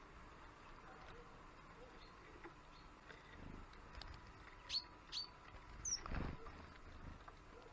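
Small songbirds at a winter feeder giving three short high chirps, each dropping quickly in pitch, about halfway through. A low dull thump comes just after the last chirp.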